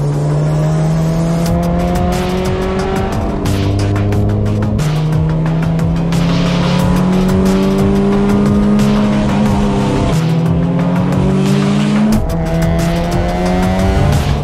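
A car engine accelerating hard through the gears, its pitch climbing steadily and then dropping at each upshift, about five, ten and twelve seconds in, with music playing underneath.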